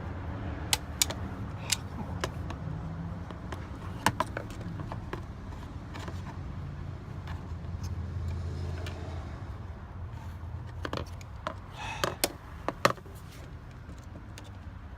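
Sharp metallic clicks and clinks of pliers working at the heater hose fittings, scattered a few at the start and a cluster near the end, over a steady low hum.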